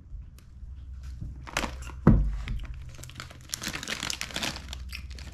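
Crinkling of a foil chip packet, a bag of Smith's salt and vinegar chips, handled and held up, in irregular crackles that are thickest near the end. A single thump about two seconds in, the loudest moment.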